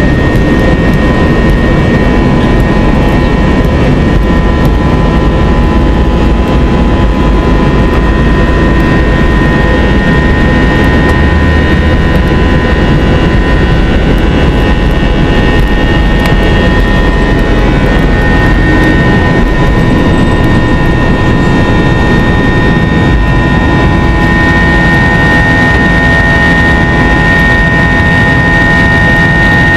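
Airbus A321 jet engines at takeoff thrust, heard from inside the cabin: a loud, steady roar with a high whine, over a deep runway rumble. The rumble eases about two-thirds of the way through as the wheels leave the runway, and the whine grows stronger during the climb.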